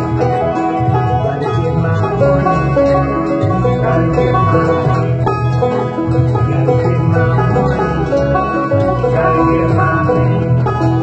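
Resonator banjo fingerpicked in a fast, busy roll over a full band backing with a deep bass line, an instrumental stretch of a bluegrass-style folk song with no singing.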